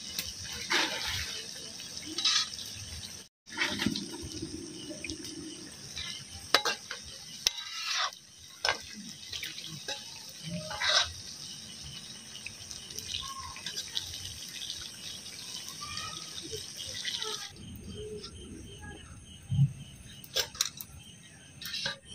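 Water hissing steadily, with scattered knocks and clinks over it; the hiss drops away about three-quarters of the way through.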